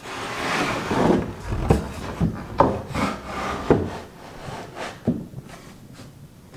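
A paulownia wood board is slid and scraped over wooden loft beams, followed by several knocks as it is pushed and settled into place. Its edges have just been sanded down so that it fits between the beams.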